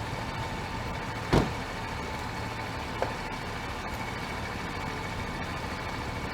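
Vehicle engine idling steadily, with a sharp knock a little over a second in and a fainter click about three seconds in.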